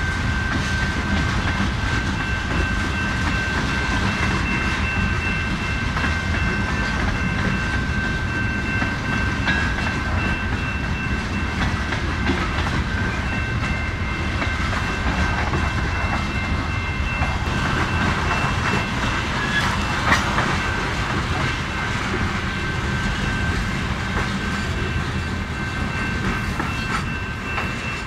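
Canadian Pacific freight train rolling steadily past, its cars' wheels clicking over the rail joints with a continuous low rumble and a steady high-pitched ringing tone over it. There is one sharp knock about 20 seconds in.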